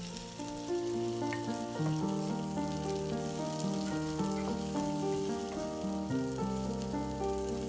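Oil sizzling steadily as dried chillies, garlic, shallots and dried shrimps fry in a wok, stirred with a wooden spatula. Background music plays a melody of held notes over it.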